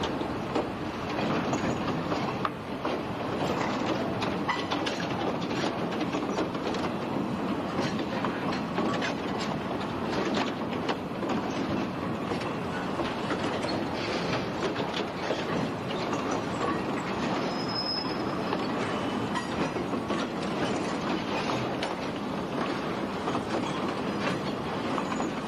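Freight wagons rolling through a rail yard, steel wheels clicking over rail joints and points in a dense, irregular run, with some wheel squeal.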